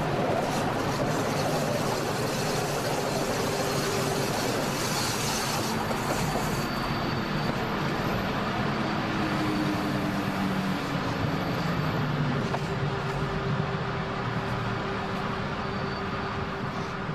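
Electric train running along the track: a steady rolling rumble of wheels on rails, with a faint hum that wavers in pitch and settles into a steady tone in the second half.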